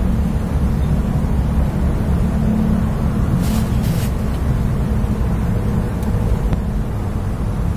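Steady low outdoor rumble, with two short swishes about three and a half seconds in as a spinning rod is cast and the line runs out.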